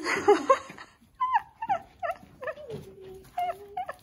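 An animal giving a run of short, high whining calls, each falling in pitch, about three a second, after a brief loud rustling burst at the start.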